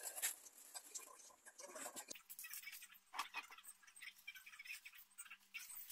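Faint crinkling and rustling of plastic sachet packets being handled and hung on a display rack, with scattered light clicks.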